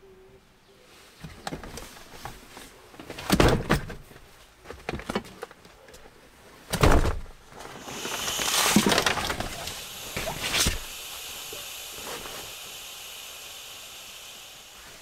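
Bedding and a sleeping mat being handled and dropped onto folded seats in a car's cargo area: rustling fabric with two heavy thumps, then a steady hiss that begins about halfway through and slowly fades.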